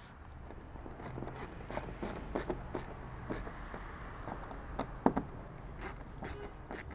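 A kayak paddle clip being fitted by hand: a run of short sharp plastic clicks about three a second, a pause midway, then several more clicks.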